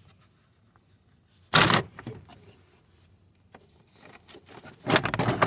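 Plastic dashboard trim being worked loose, its plastic pins and clips pulling out: two loud bursts of plastic scraping and clatter, one about a second and a half in and a longer one near the end, with light handling noise between.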